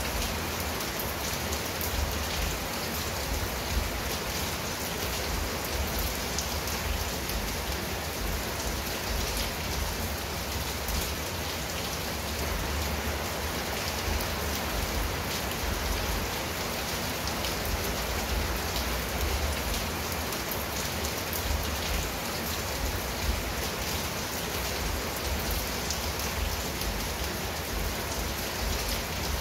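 Steady rain falling on a clay-tiled roof and garden foliage: an even hiss with the fine patter of single drops.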